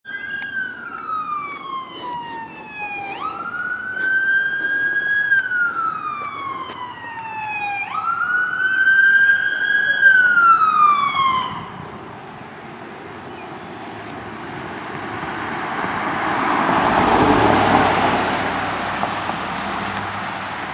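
Fire chief's emergency vehicle siren on a slow wail, each cycle rising quickly, holding briefly and then sliding down in pitch, twice over before it cuts off about twelve seconds in. The vehicle's engine and tyre noise then swell and fade as it drives past.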